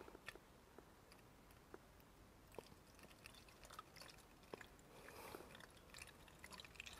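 Near silence, with faint trickling of coolant being poured into a motorcycle's plastic expansion tank and a few small clicks.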